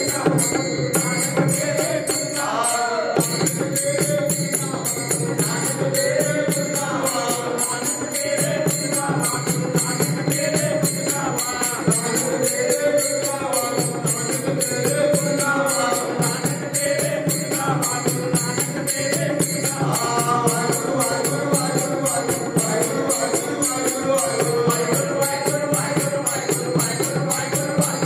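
Sikh kirtan: devotional hymns sung in repeated melodic phrases with instrumental accompaniment and a steady jingling percussion beat.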